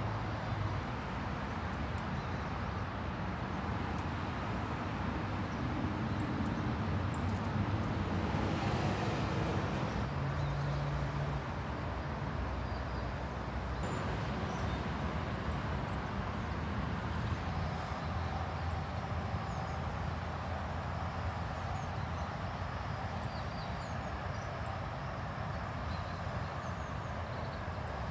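Steady rumble of distant traffic. Faint high chirps repeat evenly through the second half.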